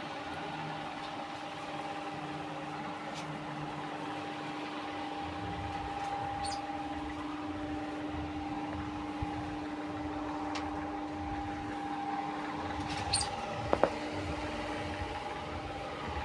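Steady motor hum holding two constant tones, with a few short high squeaks and a couple of light knocks a few seconds before the end.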